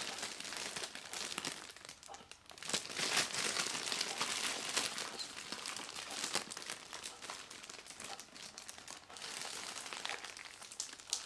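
Clear plastic bag crinkling as the massager sealed inside it is handled and turned, a continuous crackle with a short lull about two seconds in.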